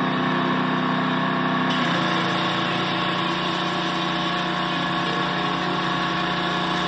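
A motor running steadily, a droning hum that changes slightly about two seconds in and then holds steady.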